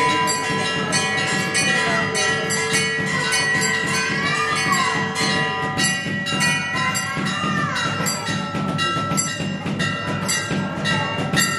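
Temple bells ringing continuously through aarti music, with rhythmic strikes about three a second and a melody that slides up and down.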